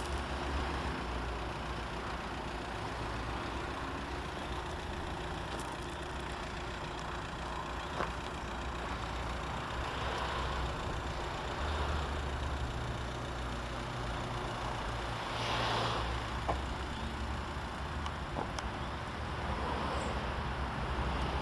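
Peugeot 206 engine idling steadily, with a low even hum.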